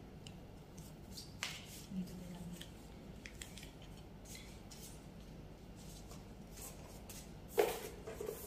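Scattered light clicks and handling knocks, then a louder metallic clank with a short ring near the end as a metal-handled mop is picked up and knocks on the tiled floor.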